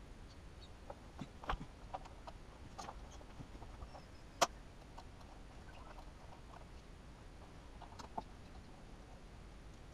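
Scattered faint clicks and taps of hand tools and loose screws against the plastic fairing as screws are taken out of a Suzuki GSXR750's lower fairing panel, with one sharper click about four and a half seconds in.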